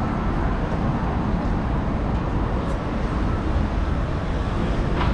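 Steady city traffic noise from a busy road, a continuous low rumble of passing cars, with a brief click near the end.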